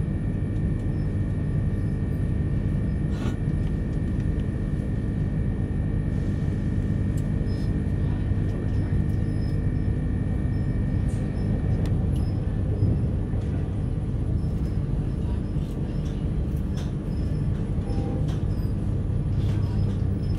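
Steady low rumble of Queensland Rail's electric Tilt Train, heard from inside the carriage as it moves off from the station. Faint steady tones stop about twelve seconds in, and a few light clicks come through.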